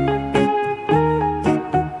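Background instrumental music: a melody with a new note about every half second.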